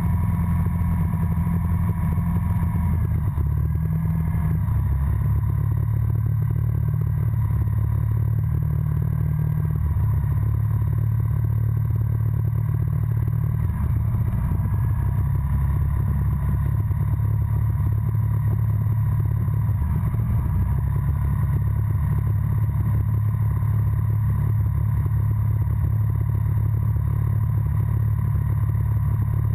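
Breezer ultralight's propeller engine running steadily at taxi power, a steady low drone.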